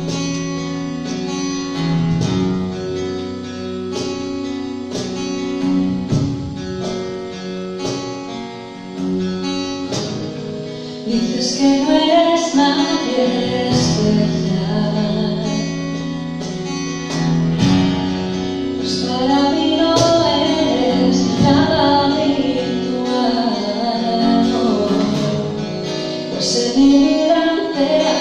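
Live acoustic band playing a Spanish pop ballad: acoustic guitar picking and strumming with bass guitar through an instrumental intro, then a female voice begins singing about eleven seconds in.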